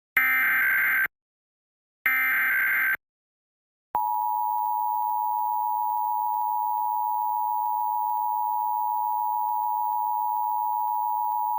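Emergency Alert System test tones. Two buzzy digital header data bursts of about a second each, a second apart. Then, about four seconds in, the steady two-tone attention signal comes on and holds.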